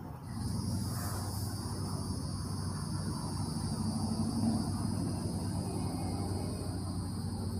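Insects droning steadily at a high pitch, setting in about a quarter second in, over a low steady hum.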